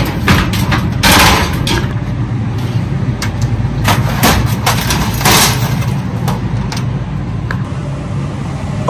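Wire shelves of a frozen food display case clattering and scraping as they are handled and lifted out, several sharp metallic knocks and a couple of longer scrapes, over a steady low hum.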